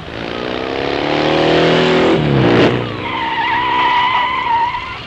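Motorcycle engine growing louder as it approaches, then dropping sharply in pitch as it passes about two and a half seconds in. A long screech of tyres skidding follows and ends near the end.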